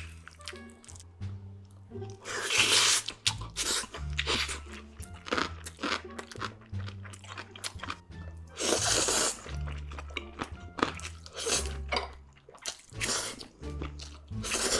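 A person eating cheesy noodles with chopsticks: two long, loud slurps, about two seconds in and again near the nine-second mark, among wet chewing and smacking mouth sounds. Background music with a low bass line plays under it.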